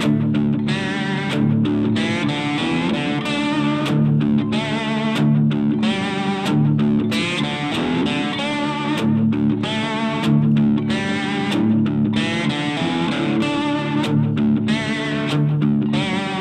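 Cigar box guitar played solo: a picked riff of notes that waver and bend, with sharp plucked attacks keeping a steady rhythm.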